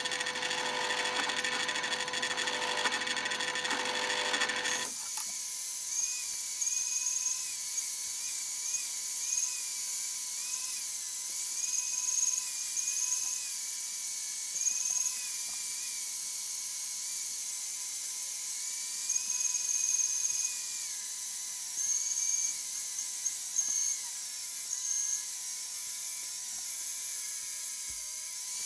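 A drill press drilling holes through a laminated wooden knife-handle blank for about five seconds. After a sudden change, a band saw runs and cuts the handle outline, its high whine wavering up and down as the blade works through the wood.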